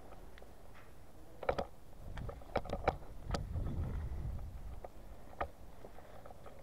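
A player's movement: a cluster of irregular clicks and crunches, from footsteps on debris and dry twigs, about a second and a half in. A low rumble of handling or wind on the body-worn microphone follows, then a couple of lone clicks.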